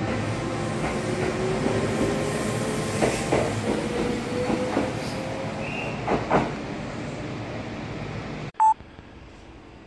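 Kintetsu 'Kagirohi' charter train pulling out along the platform: steady running noise with a motor whine that slowly rises in pitch as it gathers speed, and the wheels clacking over rail joints several times. The sound cuts off abruptly near the end, followed by a very short, loud beep.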